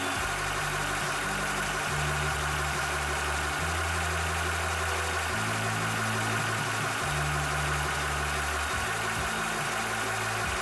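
Cobra high-pressure PCP air compressor running steadily while pumping, a constant machine hum with a steady whine.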